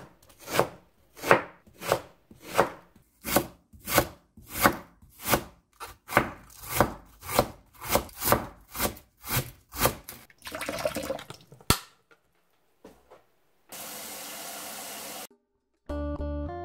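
A knife shredding a head of cabbage thinly on a cutting board in slow, even strokes, about three every two seconds. The cutting stops about ten seconds in, followed by a short rustle, a single click, and later a steady hiss lasting about a second and a half; music starts at the very end.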